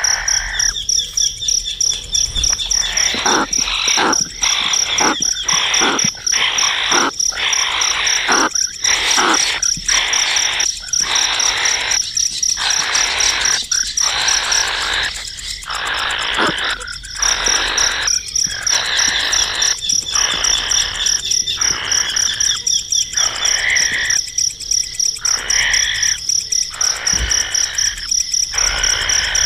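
Baby birds' harsh, repeated begging calls, roughly one or two a second, over a steady high pulsing trill that breaks off briefly past the middle.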